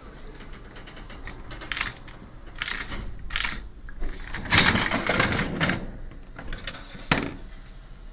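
Gashapon capsule-toy vending machine: three separate clinks as 100-yen coins go into the slot, then the crank knob is turned with a fast run of ratcheting clicks. A single sharp knock comes near the end as the capsule comes out.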